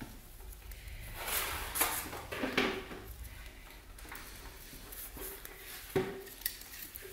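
Top piston ring being worked off an engine piston by hand: faint scraping and small metallic clicks of the ring against the piston, with a sharper click about six seconds in.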